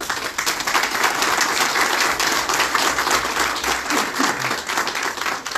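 Audience applauding steadily, many hands clapping at once, tapering off near the end.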